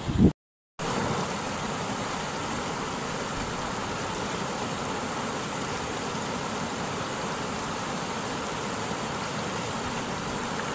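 Rushing mountain stream pouring over rock ledges in small white-water rapids: a steady, even rush of water that starts just under a second in after a brief dropout.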